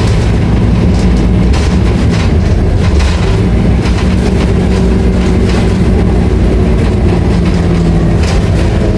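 Scania K310IA articulated bus's rear-mounted diesel engine running at a steady, loud drone with held engine tones, while the bus body gives off light rattling clicks.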